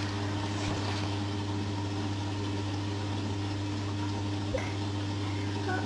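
Steady low hum with a light hiss, with a faint click about four and a half seconds in.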